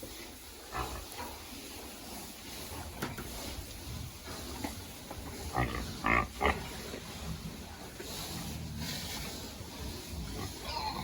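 A group of pigs grunting at a low level, with two short, louder grunts close together about six seconds in.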